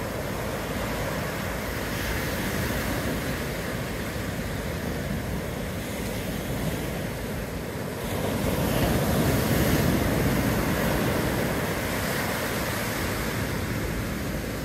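Ocean surf washing in continuously, with one wave building louder about eight seconds in and easing off a few seconds later.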